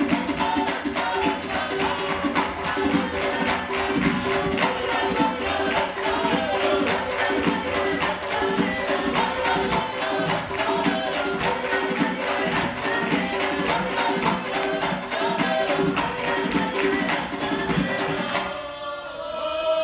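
Georgian polyphonic folk singing by a mixed vocal ensemble over one steady held drone note, driven by fast, even hand drumming. Near the end the drumming stops and the voices hold a final chord.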